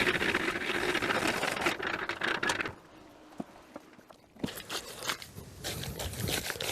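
A hand tool scraping and pushing through wet concrete, with a pause of about a second and a half partway through and then shorter, scattered scrapes.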